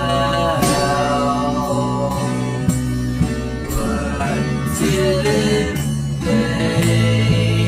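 Background music: a song with guitar and sung vocals.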